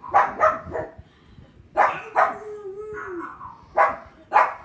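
A pug barking in short, sharp barks, mixed with dogs barking on a television. The barks come in clusters of two or three, and a drawn-out, wavering cry lasts about a second between them.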